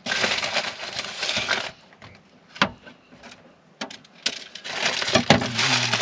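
Brown paper bag crinkling and rustling as it is handled, then a few sharp taps of a knife on a plastic cutting board, then more paper rustling near the end.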